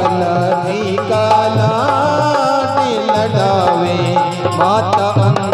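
Dholak drumming a steady folk rhythm under a harmonium playing the bhajan melody, an instrumental passage between the sung lines of a Rajasthani devotional song.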